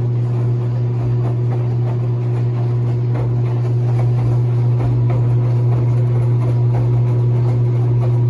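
Enxuta Soft 4 kg washing machine running, its motor giving a loud, steady hum with faint rattling over it.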